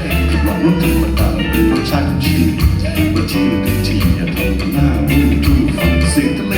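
Live band music in an instrumental passage: guitar and bass over a steady drum beat.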